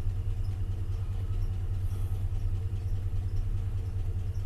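GMC Sierra Denali's V8 idling with a steady low hum, an engine that has been logging an intermittent misfire.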